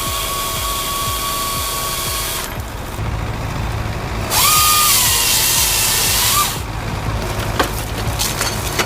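A power saw running at high speed, then cutting loudly through wood for about two seconds, its pitch rising and then dropping under load. Sharp cracks and knocks follow, over a steady low hum.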